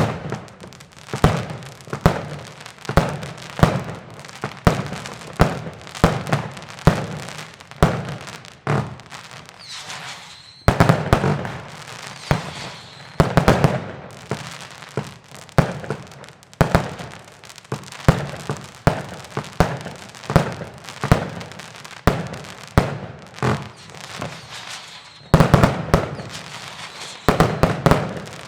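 New Year's Eve fireworks: a steady run of sharp bangs, about one to two a second, with crackling between them and denser volleys about ten seconds in and near the end.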